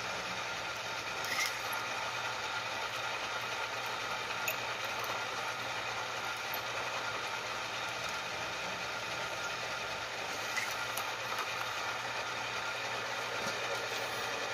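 Drill press running steadily while a small number 40 bit drills rivet holes through thin sheet steel, with a few faint clicks.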